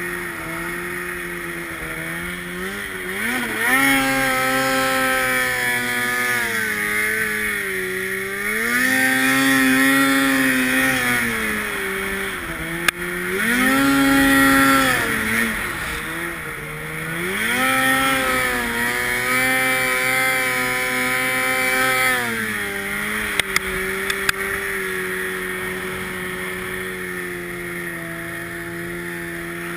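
Snowmobile engine revving up and easing off in four surges, its pitch climbing and falling with the throttle. It settles to a steady, lower run in the last few seconds. A few sharp clicks come about halfway through and again a little later.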